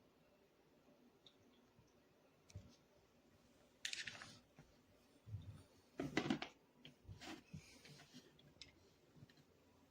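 Quiet room with a few short clicks and rustling handling noises, the loudest about four seconds in and a cluster about six seconds in.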